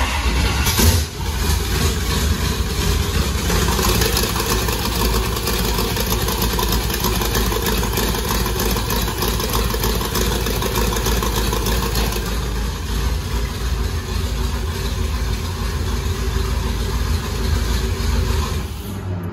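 Twin-turbo small-block Chevy V8 on Holley Terminator X fuel injection starting straight on the key, with a short surge about a second in, then idling steadily at about 780 rpm. It is shut off near the end.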